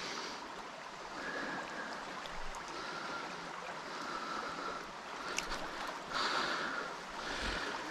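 Shallow river running over a gravel bed: a steady rush of flowing water, with a faint click about five and a half seconds in.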